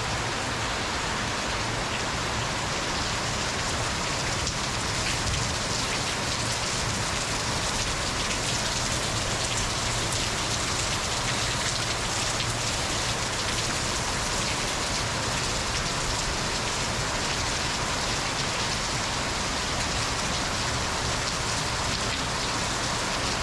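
Rain falling steadily in a rainstorm: a constant, even hiss of many drops striking surfaces.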